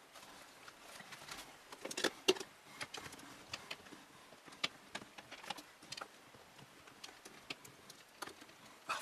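Irregular clicks and light knocks of hard computer parts being handled during a case fan and cooler installation, the loudest cluster about two seconds in.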